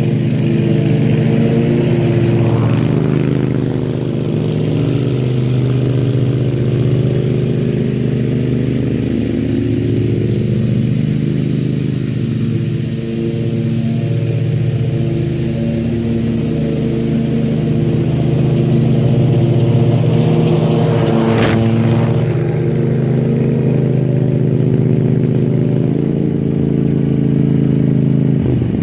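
Zero-turn lawn mower engine running steadily, with a brief swell in the sound about three-quarters of the way through.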